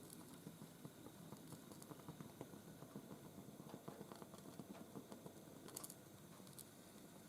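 Near silence with faint, irregular small clicks and crackles, and a brief sharper cluster of clicks near the end.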